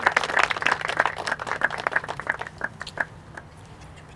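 A crowd of guests applauding, many hands clapping at once, then thinning to a few scattered claps that die away about three seconds in.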